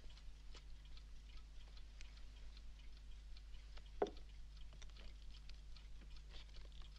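Quiet ticking of several clocks, the ticks overlapping in an uneven patter. One louder knock comes about four seconds in, as the lid of a case on the bench is lifted.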